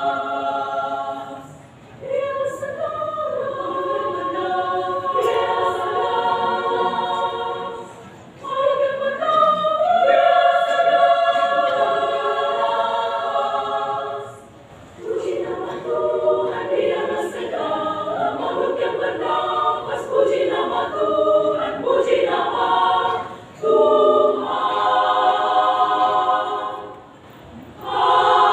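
Women's choir singing in harmony: held chords sung in phrases, with brief pauses between phrases every several seconds.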